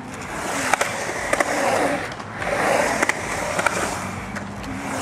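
Skateboard wheels rolling on a concrete bowl, the rolling noise swelling and fading about every two seconds as the board carves up and down the walls, with a few sharp clicks along the way.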